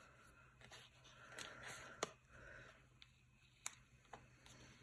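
Faint rustling of sticker paper and a few soft clicks as fingers lift and press a long sticker strip onto a paper planner page.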